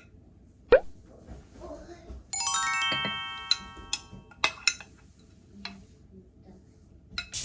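A spoonful of strawberry syrup plops into yogurt, with light clinks of a spoon against a bowl. About two seconds in, a chime of several ringing notes stepping downward sounds and fades away over a couple of seconds.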